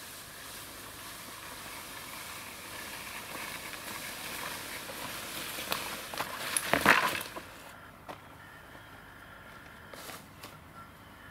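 Rustling that builds into a burst of crackling, as of leafy willow branches and twigs being handled or pushed through. It is loudest about seven seconds in and stops suddenly just after. A couple of faint clicks follow.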